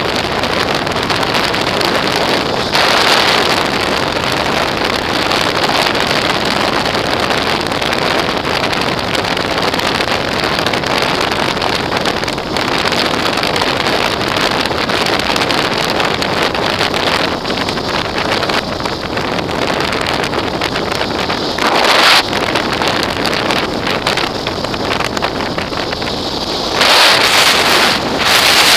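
Wind rushing over the microphone of a camera on a motorcycle riding at highway speed, with engine and road noise underneath. Gusts swell louder briefly a few seconds in, about two-thirds of the way through, and again near the end.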